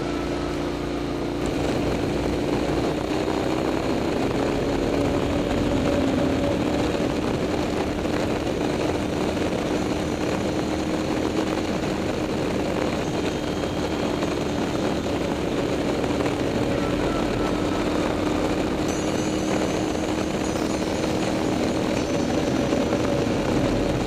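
KTM 990 SMT's V-twin engine with a LeoVince exhaust, running under way. The pitch rises a little in the first few seconds and then holds steady, under a heavy rush of wind noise that gets louder about a second and a half in.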